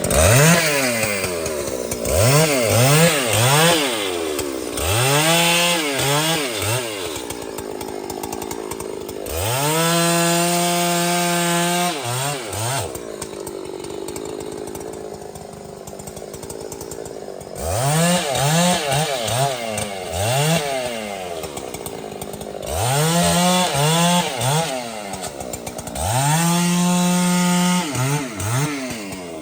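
Large two-stroke chainsaw revving up and down in quick throttle blips, then held at high speed for a couple of seconds about ten seconds in and again near the end. It drops back to a low, quieter run in between.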